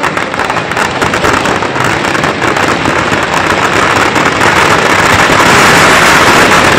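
Firecrackers packed inside a burning Ravana effigy going off in a dense, continuous crackle, growing louder over the last few seconds as the effigy bursts into flame.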